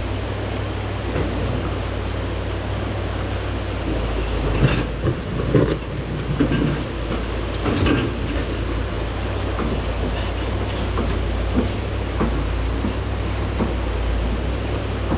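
Excavator's diesel engine running with a steady low rumble, with scattered clanks and knocks, most of them about four to eight seconds in. The machine has been shutting down repeatedly, which the filmer takes for mechanical issues.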